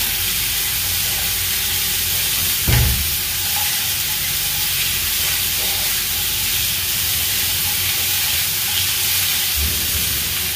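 Cubed squash with garlic and onion sizzling steadily in hot olive oil in a skillet while a spatula stirs it. A dull knock about three seconds in and a softer one near the end.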